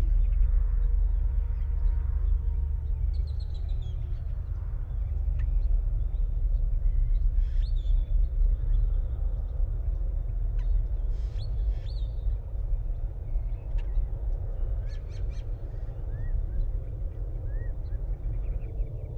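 Outdoor desert ambience: a steady low rumble under scattered short, high bird chirps and calls that come every few seconds. A thin, steady high tone joins about halfway through.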